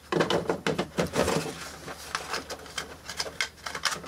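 Small plastic clockwork timer being handled and fitted back together: a run of irregular clicks and knocks.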